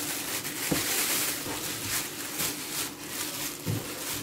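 Cleaver slicing through raw pork fat and knocking on a plastic cutting board twice, about a second in and near the end, over a steady hiss.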